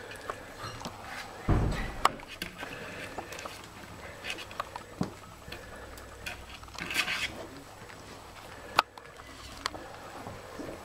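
Alaskan malamute puppies and an adult malamute moving about on soft bedding: scattered soft knocks and sharp clicks, with a low thump early on and a short cluster of higher, voice-like puppy sounds about seven seconds in.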